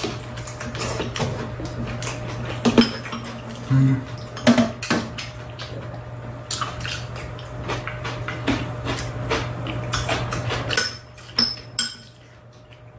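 Metal spoons clinking and scraping against bowls during a meal, in many short irregular clicks, over a steady low hum.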